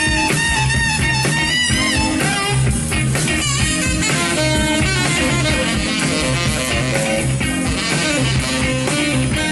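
Live soul band playing an instrumental passage: a steady bass and drum groove under guitar and a lead line that bends in pitch.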